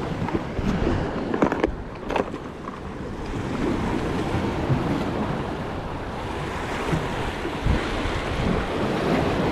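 Sea waves washing on the shore, with wind buffeting the microphone, and a few short clicks about one and a half to two seconds in.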